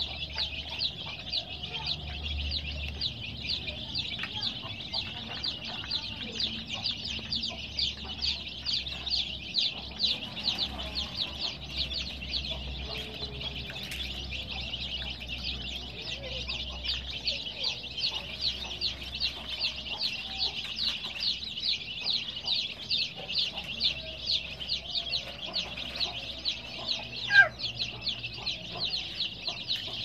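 A crowd of baby chicks peeping continuously, many short high chirps overlapping into a dense chorus, with one louder call near the end.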